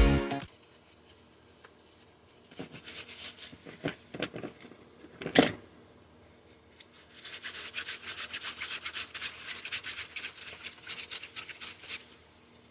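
Hand scraping and rubbing while stripping tape and plastic off a microwave turntable motor's copper coil: a few irregular scrapes with a sharp click about five seconds in, then a steady rasping run of about five seconds.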